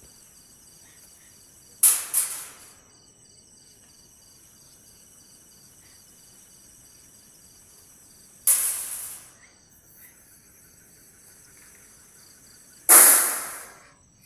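Night insects, crickets among them, chirping steadily with a pulsing trill several times a second. Three sudden loud noisy bursts break in, each dying away within about a second, the last the loudest.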